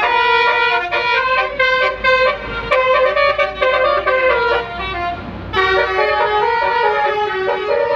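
Basuri musical bus horn playing a tune: a loud run of short horn notes stepping up and down in pitch, with a brief break about five seconds in before the melody carries on.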